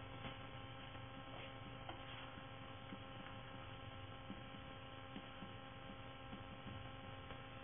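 Faint, steady electrical hum with several thin steady tones above it.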